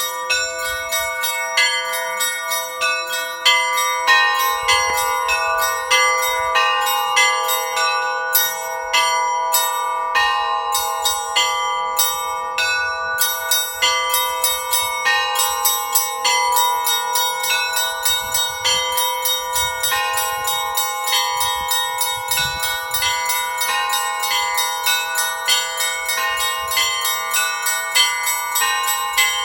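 Orthodox church bells rung by a bell-ringer: many bells struck in a quick, continuous rhythmic peal, several strokes a second, with a lower bell's tone ringing on underneath.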